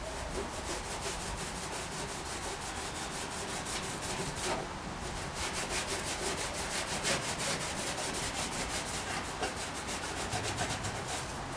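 Hand abrasive scrubbing on the painted sheet-metal tailgate of a 1959 VW Type 2 single cab, in quick back-and-forth strokes of about five a second, with a short pause about four and a half seconds in.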